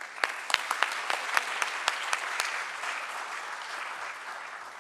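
Audience applauding, with a number of sharp, close individual claps standing out in the first two seconds or so; the applause thins and dies away near the end.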